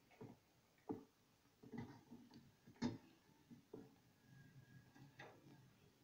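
Faint, scattered wooden knocks and clatter, about half a dozen, from a pair of long wooden skis being handled and bumped as they are carried through a doorway. It is heard from a television's speaker through a phone microphone.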